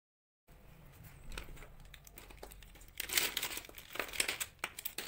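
Hands gathering a bundle of plastic pens and markers, the barrels rubbing and clattering against each other in quick clicks. It starts about half a second in with soft rustling and is busiest between about three and four and a half seconds in.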